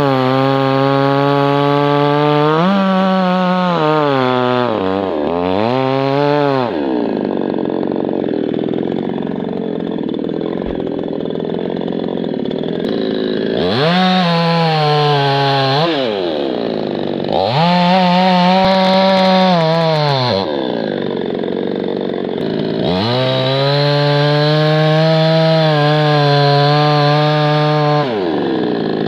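Chainsaw at full throttle bucking a birch trunk into firewood lengths: the engine pitch sags and turns rough each time the chain bites into the wood, then climbs back to a high steady whine between cuts. There are three such cuts, each a few seconds long.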